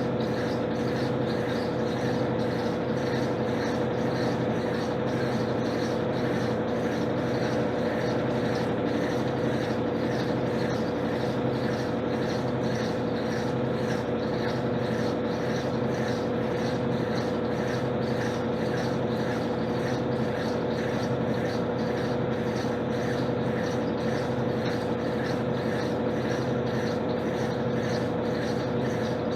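Electrolux LTC10 top-loading washing machine running steadily with a constant hum and a faint regular pulse, typical of the motor spinning the drum in the final spin.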